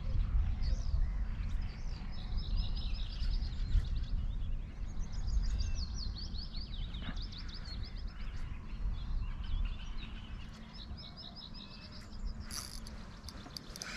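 Birds singing in several runs of quick, repeated high chirps over a steady low rumble.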